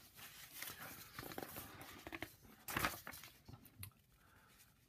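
Sheets of printer paper rustling and crinkling as a worksheet page is handled and turned over, with the loudest rustle about three seconds in.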